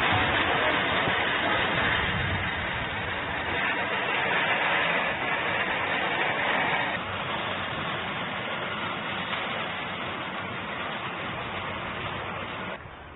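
Heavy rain falling, a steady hiss that steps down in level about seven seconds in and again near the end.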